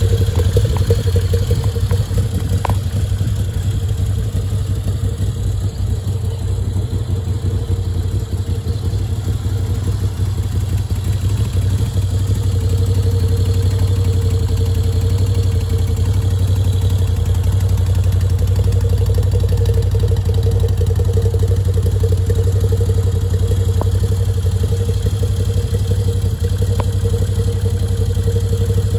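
2014 Moto Guzzi V7 Special's air-cooled 744 cc transverse V-twin idling steadily, with no revving.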